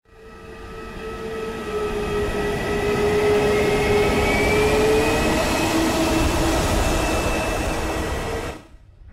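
Jet engine noise: a steady rush with whining tones that drift a little in pitch, fading in at the start and cutting off abruptly near the end.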